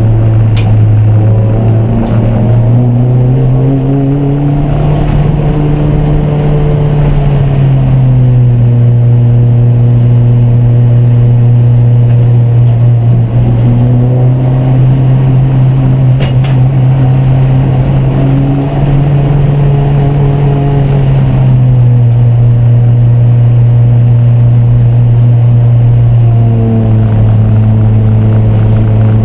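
Race car engine running hard, a loud steady note that slowly climbs and drops in pitch as the throttle and revs change.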